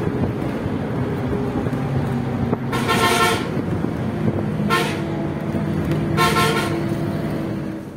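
A vehicle horn honks three times, a longer blast about three seconds in followed by a short one and another medium one, over the steady engine and road noise inside a moving bus.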